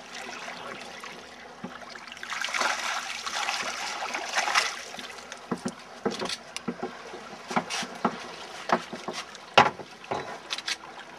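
Water splashing for a few seconds as a hooked red snapper is landed into a small boat, followed by a scatter of sharp knocks and thumps.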